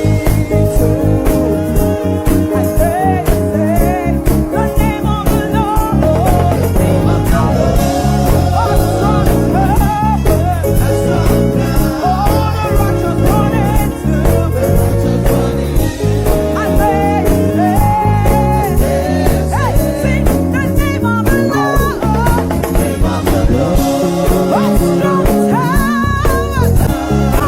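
Live gospel praise band playing an upbeat song with a steady beat, with singing over the instruments.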